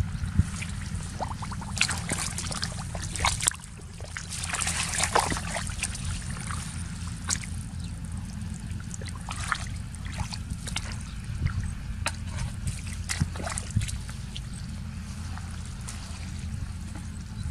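Hands groping in shallow muddy water, with wet squelching and small irregular splashes and crackles, over a steady low rumble.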